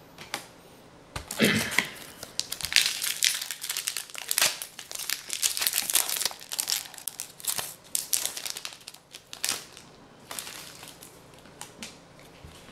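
Foil wrapper of a Magic: The Gathering booster pack crinkling as it is torn open and handled. The crackling starts about a second in and dies down near the end.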